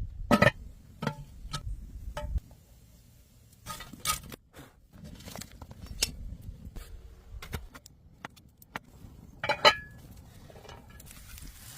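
Metal camping cookware and utensils being handled, giving a run of clinks and knocks. The loudest come about half a second in and near the end, one with a brief ring.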